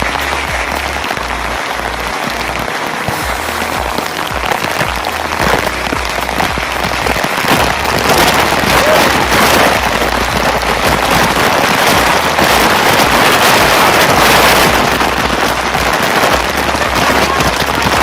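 Waterfall cascade rushing and splashing, a loud steady rush of water that grows louder about eight seconds in.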